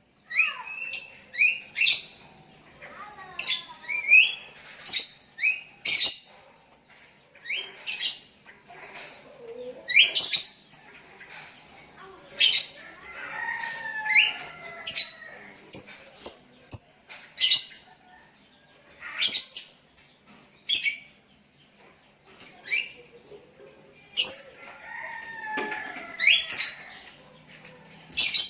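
Sooty-headed bulbuls calling back and forth: short, sharp chirping notes repeated every second or two, with fainter lower whistled calls between them.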